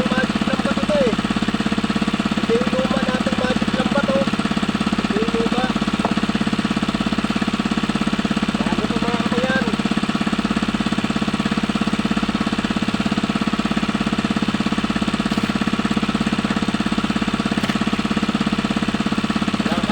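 Small engine running steadily with a rapid, even pulsing that does not change in speed.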